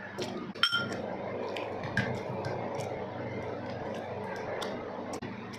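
Close-miked eating sounds: wet chewing with many small mouth clicks and smacks. About half a second in, one brief ringing metallic clink.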